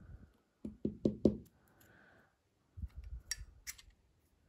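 Light metal knocks and clicks from a Bestechman Mini Dundee folding knife being taken apart, as the handle scale is worked off the blade and pivot. A quick run of four knocks comes about a second in, then softer clicks with two sharp ticks around three seconds in.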